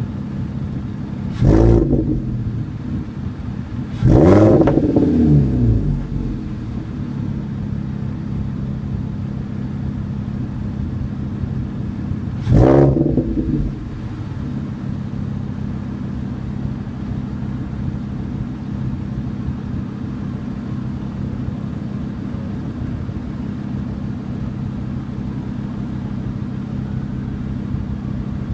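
2012 VW Golf MK6's 2.5-litre five-cylinder idling through a catless test pipe and a single Magnaflow muffler, with the resonator and other mufflers removed. The throttle is blipped three times, about a second and a half in, about four seconds in (the longest), and about twelve seconds in, each rev rising sharply and falling back to a steady idle.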